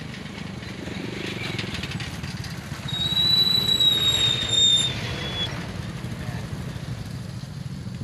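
Motorcycle engine running close by with a low rumble, getting louder as it passes about three to five seconds in, when a high steady whine joins it.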